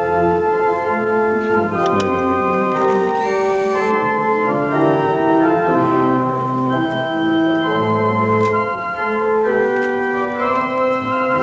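Organ music: sustained held notes and chords moving from one to the next in a steady, legato melody.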